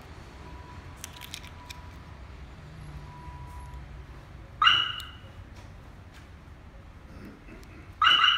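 Pandora Light Pro car alarm on a Smart Fortwo giving two short siren chirps about three and a half seconds apart: the confirmation that the alarm is armed and the car locked. A few faint clicks come about a second in.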